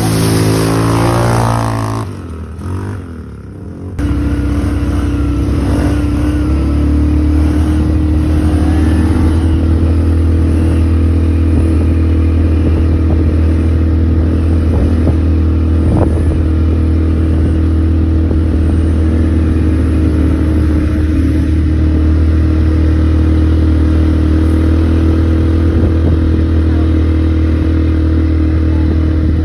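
ATV engine revving briefly at the start and easing off about two seconds in. It then picks up again about four seconds in and runs at a steady speed.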